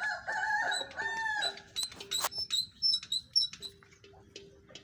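A chicken gives a wavering call lasting about a second and a half at the start. Short, high peeping chirps repeat throughout, with a few clicks.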